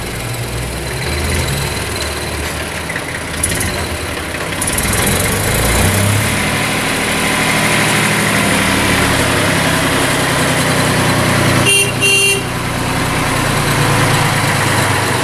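A 53-year-old tractor's engine running as it drives closer, growing louder. About twelve seconds in, its horn toots twice in quick succession.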